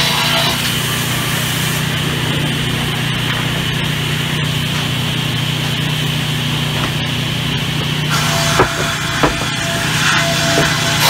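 Sawmill resaw machine running steadily with a constant low hum as a thick timber plank is fed through and ripped lengthwise into two boards. Two sharp knocks come a little before the end.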